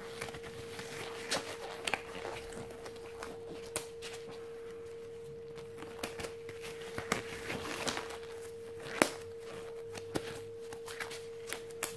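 Black disposable glove being pulled on and stretched over the hand: irregular snaps and crinkling rubs of the thin glove material, the sharpest snap about nine seconds in. A steady background hum runs underneath.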